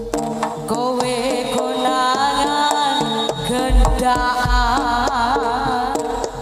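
Live Javanese jaranan gamelan music: hand-drum strokes and ringing metal percussion under a wavering high melody line, with deep drum beats joining about halfway through.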